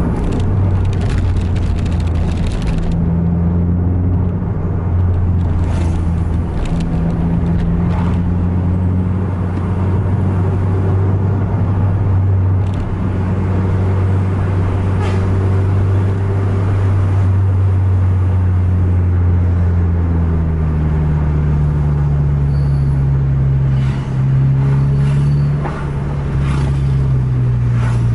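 Bus diesel engine running steadily at cruising speed, heard from inside the cabin, with road and tyre noise. About two-thirds of the way through the engine note climbs, and near the end it briefly drops twice, as the driver works the throttle and gears to close on the vehicle ahead.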